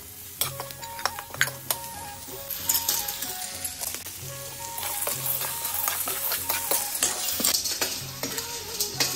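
A metal spatula scraping and clinking in a steel wok over a wood fire while food fries and sizzles in the pan. The sizzling grows louder about halfway through, after a basketful of ingredients is tipped in.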